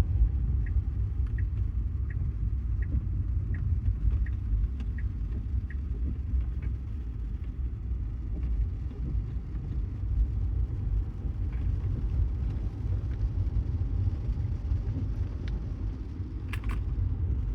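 Inside a Tesla's cabin: steady low rumble of tyre and road noise on a wet street, with no engine note. For the first six seconds or so the turn-signal indicator ticks evenly, about once every 0.7 s.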